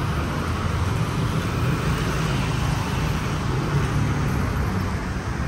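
Steady running noise of a moving vehicle: a low rumble with a hiss above it.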